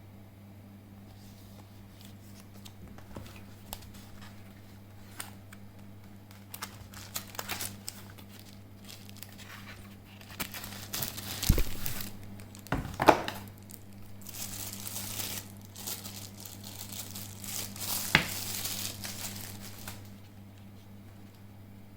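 Plastic packaging crinkling and rustling as a keyboard wrist rest is unwrapped, with a few sharp knocks from the handling, over a steady low hum. Small scattered clicks come first, and the crinkling takes over from about halfway and stops a couple of seconds before the end.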